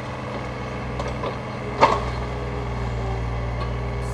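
Takeuchi TB235 mini excavator's diesel engine running steadily while the machine works a log, with a sharp knock about two seconds in and a few lighter clicks before it.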